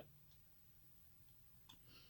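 Near silence: room tone, with a faint small click near the end.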